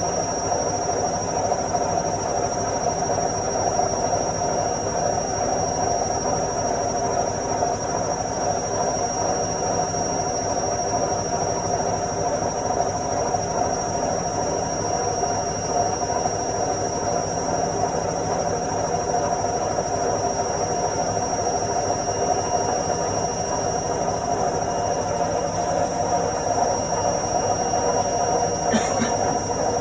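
Washing machine spinning its drum on the spin cycle, a steady, even whirring rumble, with a brief high squeak about a second before the end.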